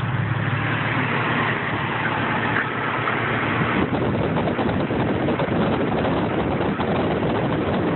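1999 Jeep Cherokee's 4.0 L inline-six engine idling roughly, an idle that has sagged toward stalling. From about halfway a rough, rustling noise, like wind or handling on the microphone, covers the engine.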